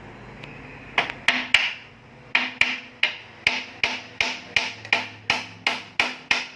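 Hammer blows with a short ring after each, during assembly of a noodle-making machine: three quick strikes, a short pause, then a steady run of about three a second.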